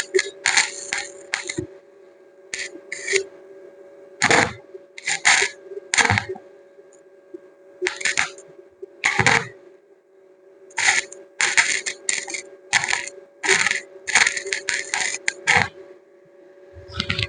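Short, irregular scraping strokes, about one or two a second with pauses between runs, over a steady low hum.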